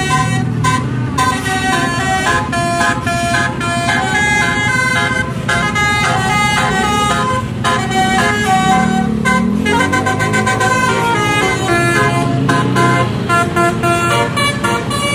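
Bus's Basuri telolet multi-tone horn playing a quick melody of short tooting notes over the running engine. The engine note rises in pitch about nine seconds in.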